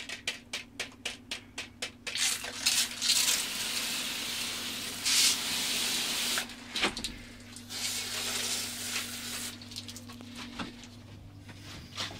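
Garden hose spray nozzle hissing as water is sprayed onto a smouldering shed wall to put out the last of a fire, strongest from about two to six and a half seconds in and weaker after. A quick run of clicks in the first couple of seconds, and a faint steady hum underneath.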